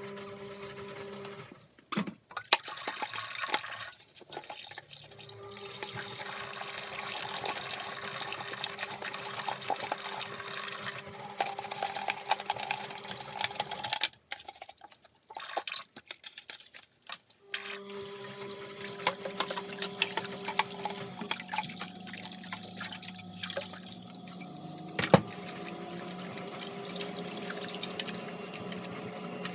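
Tap water running and splashing as vacuum cleaner parts are washed. The flow breaks off a few times, longest for about three seconds in the middle, with a steady hum underneath and a sharp knock near the end.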